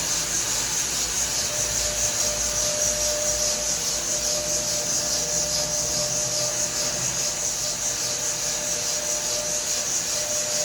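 Power polisher working over Takine granite, a steady rasping hiss of the pad on the stone with a faint steady motor hum underneath.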